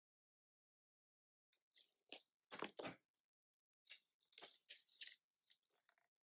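Pages of a pop-up book being handled and turned: a quick run of short paper rustles and crackles, the loudest pair about two and a half seconds in.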